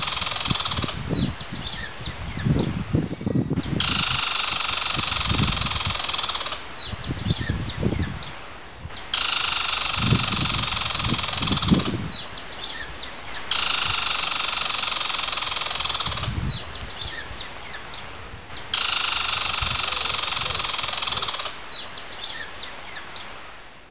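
Small birds chirping, alternating every few seconds with a steady high hiss, in a cycle that repeats about every five seconds, with low soft crackling knocks under the chirps.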